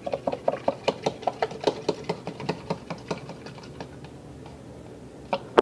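Spoon stirring borax into water in a small container, clicking against the sides about four or five times a second, then slowing and fading, with one sharper tap near the end.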